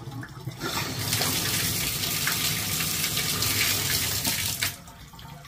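Water gushing from a bathtub spout as a Moen single-handle tub/shower valve with a new 1222 cartridge is opened, then cutting off abruptly near the end when the handle is closed: the valve now shuts the water off, the fault that it would not stop running cured.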